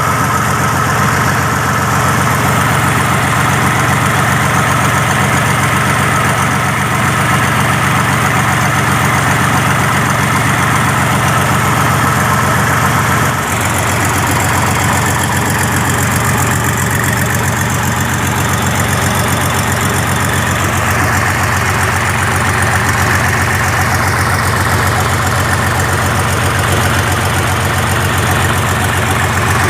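Mitsubishi 6D14 inline six-cylinder diesel engine of a 75 kVA generator set, freshly overhauled, running steadily.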